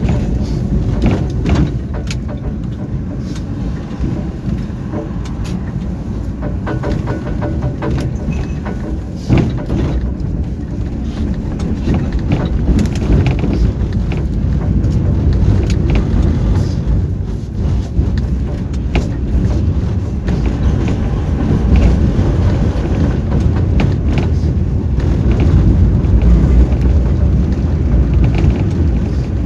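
Tram running along the line, heard from inside: a steady low rumble with frequent short knocks and rattles from the wheels and body, growing a little louder in the second half.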